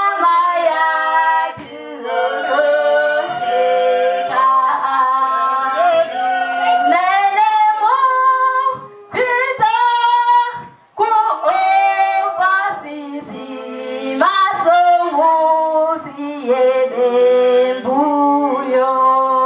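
A woman singing into a handheld microphone, a single voice holding notes and stepping between them, with brief pauses between phrases.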